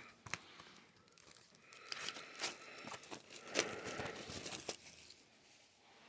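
Plastic shrink-wrap being torn and peeled off a DVD case, crinkling and crackling in irregular bursts that are busiest in the middle seconds and die away near the end.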